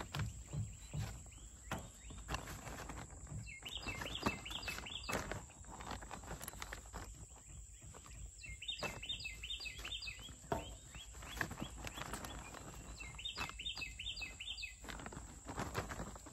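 A songbird sings three short phrases of quickly repeated chirping notes, spaced about five seconds apart. Under them, a plastic potting-mix bag crinkles and rustles as potting mix is scooped out by hand.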